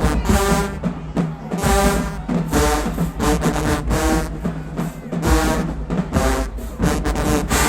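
Marching band playing a hip-hop arrangement: loud brass chords over a heavy bass drum and drumline beat.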